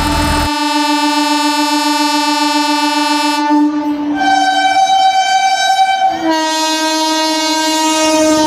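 Train horn sounding in long, steady, loud tones. The pitch changes about four seconds in and again about six seconds in.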